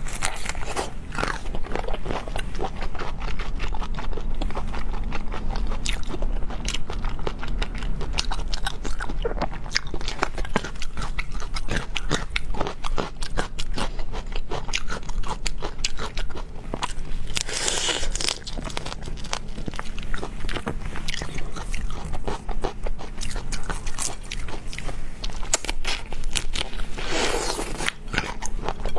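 Close-miked chewing and biting of seafood: wet, crunchy mouth sounds made of many small clicks and crackles, with two louder crunches, one past the middle and one near the end.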